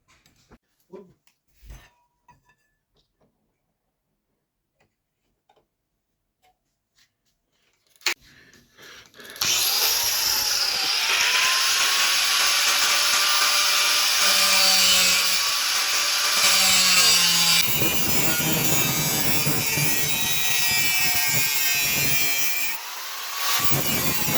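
A few faint taps and clicks of handling, then a sharp click, and about nine seconds in a power tool starts working material and runs loud and steady, with a slight wavering in its pitch and a brief dip near the end.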